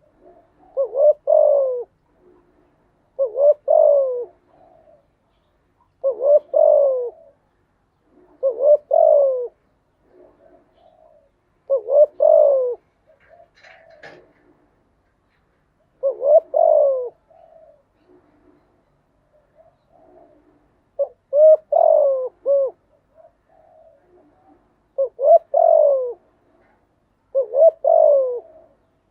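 Spotted dove cooing. It repeats its several-note coo phrase about nine times, each phrase about a second long and coming every two to four seconds, with softer low coos in between.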